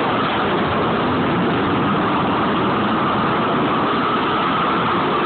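Hose-fed propane torch burning steadily at full flame, an even rushing noise with a faint steady tone running through it.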